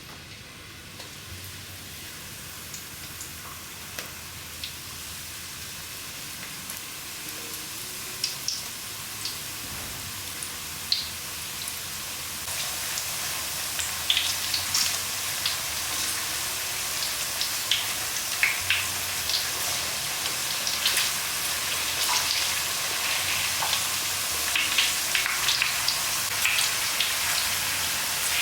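Sweet potato slices frying in hot oil: a steady sizzle with scattered pops and crackles that grows gradually louder and busier.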